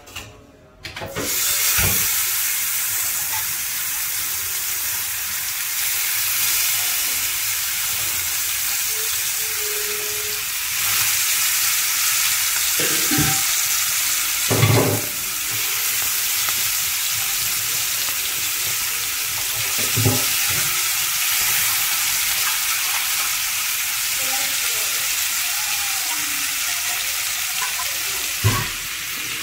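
Chicken drumsticks frying in hot oil in a grill pan: a steady sizzle starts about a second in. A few short knocks come through it as the pieces are laid in the pan.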